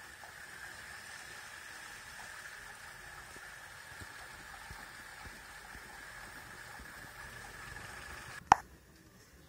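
Steady rush of water: muddy storm runoff flowing down a street. Near the end a single sharp click, after which the sound drops to a much quieter level.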